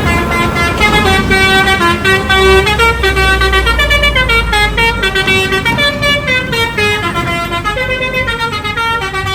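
Telolet Basuri musical horn playing a multi-note tune, each note held briefly as the pitch steps up and down. A low engine rumble sits under the first half.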